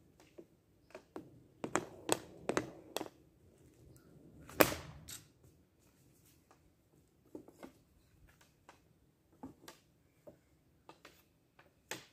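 Hockey stick shots off a homemade shooting pad: sharp clacks of the stick blade striking the pad and ball. A quick cluster comes early, the loudest crack about four and a half seconds in, then lighter scattered taps and one more sharp clack near the end.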